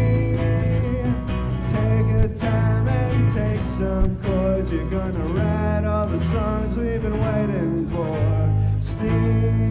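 Live band music: an acoustic guitar strummed over an electric bass line, with a melody line bending in pitch above them and a few sharp hits.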